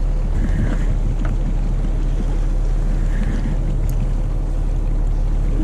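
Wind and water noise aboard a small boat at sea: a steady low rumble.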